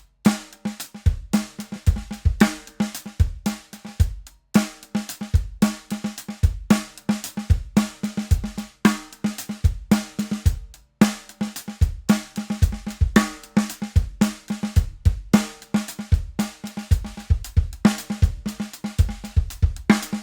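Acoustic drum kit played continuously: bass drum, snare and cymbals, with ringing drum strokes and a few short breaks.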